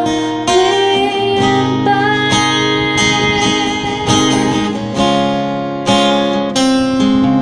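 Acoustic guitar strumming chords, with a woman singing over the first couple of seconds.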